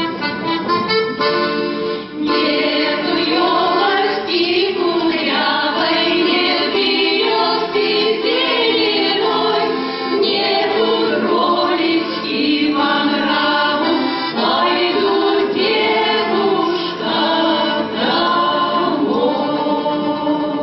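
Folk-ensemble choir singing a song to accordion accompaniment. A short accordion phrase comes first, and the voices enter about two seconds in.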